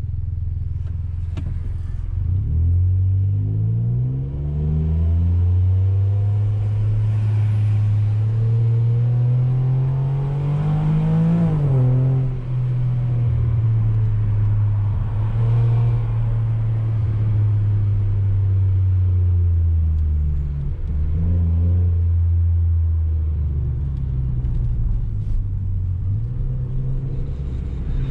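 Ford Ka 1.5 three-cylinder engine with a universal JK sport muffler fitted in place of the rear silencer, heard from inside the cabin while driving. The engine note rises in one long pull for about ten seconds and falls suddenly. It then runs steady, dips briefly, and picks up again near the end.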